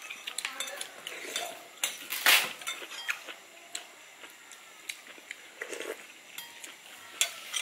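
Spoons and forks clicking and clinking against plates and bowls while eating, with one short louder burst of sound a little over two seconds in.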